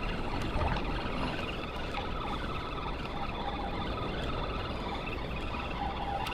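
Spinning reel being cranked steadily to bring in a hooked Spanish mackerel, a faint wavering whir over a steady wash of wind and water noise.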